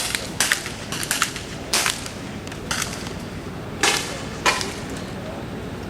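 Air rifles firing pellets on a benchrest line: about eight sharp cracks at uneven intervals, most of them in the first two seconds and two more near four seconds in.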